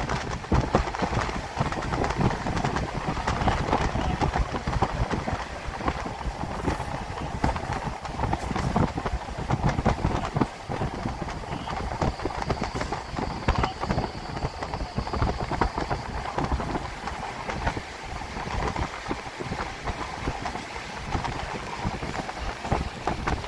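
Passenger train running along the track, heard from on board: a steady rumble with many quick clicks and clatters of the wheels over the rails.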